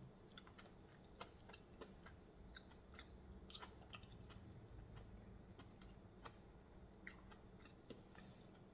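Faint chewing, with scattered small, wet mouth clicks.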